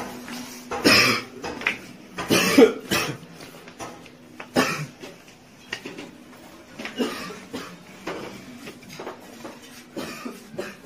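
A young man coughing over and over: a fit of harsh coughs in the first three seconds, then single coughs every second or two. It is the lingering, days-long cough of a tuberculosis patient.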